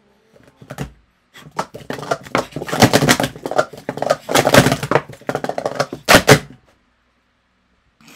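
Rapid clattering of a worn-in set of plastic sport-stacking cups being upstacked and downstacked at full speed in a timed stack. A dense run of clacks starts about a second in and stops abruptly about six seconds in.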